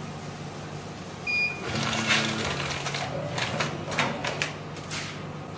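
Bag-making packaging machine running a cycle: a short electronic beep about a second in, then its motor hum rises and it clatters through a run of sharp mechanical strokes as it pulls out a bag.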